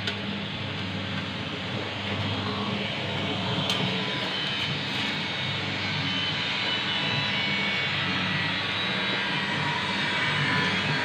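Mini popcorn-making machine running: a steady drone with a constant low hum underneath, and a light click about four seconds in.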